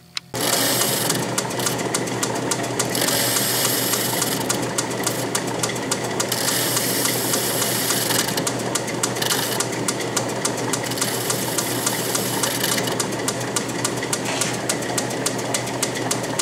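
A South Bend 10-inch Heavy lathe switching on just after the start and running under power, its compound-rest tool cutting a 45-degree chamfer on the end of the workpiece. A rapid, regular ticking runs over the steady hum of the machine.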